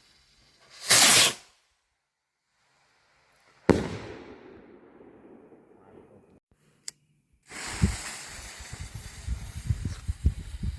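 Skyrockets firing: a loud hissing launch whoosh lasting about half a second, a second in, then a sharp bang a little under four seconds in with a tail that fades over a couple of seconds. From about seven and a half seconds a rough, gusty rumble with low thumps carries on to the end.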